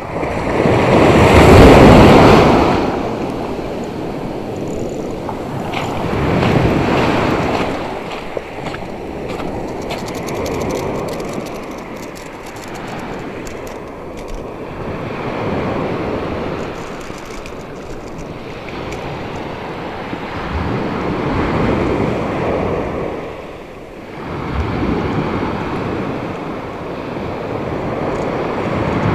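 Surf breaking and washing up a beach, rising and falling in swells every few seconds, the loudest about two seconds in.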